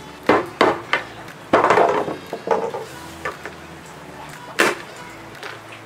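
Small kitchen tools being handled on a wooden table top: a run of sharp clicks and knocks, a short scrape or rustle about one and a half seconds in, and a louder knock near the end.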